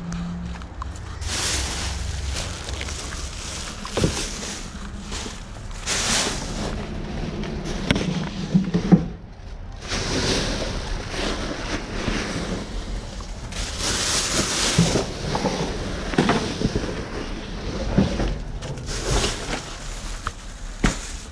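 Plastic trash bags rustling and crinkling as they are grabbed and moved by gloved hands, in irregular bursts with a few sharp knocks.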